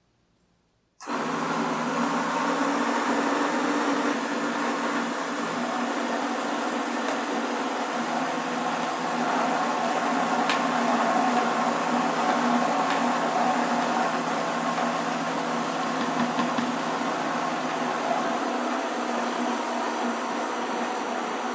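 Countertop blender switched on about a second in and running steadily, with one light click near the middle.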